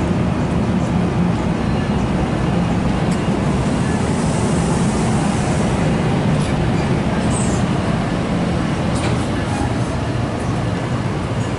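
Train rumbling steadily, a loud, even low rumble with no letup.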